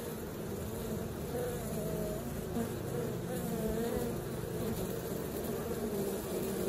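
Honeybees buzzing as they fly in and out of the hive entrance: a steady hum whose pitch wavers and swells.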